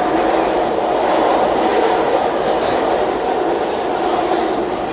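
SEPTA Market-Frankford Line Bombardier M-4 subway car running at speed, heard from inside the car. It makes a steady, loud rumble of wheels on rails and running gear.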